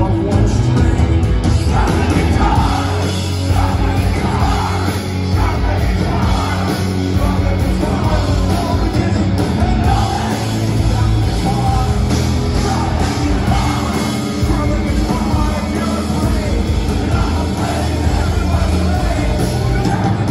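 Live rock band playing loud, with electric guitars and a singer's voice over the band, heard from the audience.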